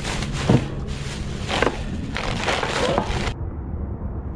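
Clear plastic bag crinkling and rustling as it is handled, with several sharp crackles. It stops abruptly about three seconds in, leaving a low steady rumble.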